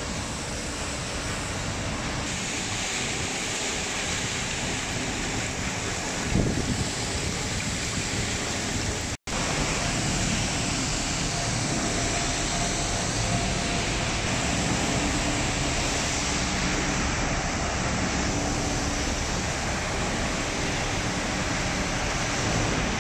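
Wastewater treatment equipment running, a steady rushing of water and machine noise with a brief drop to silence about nine seconds in.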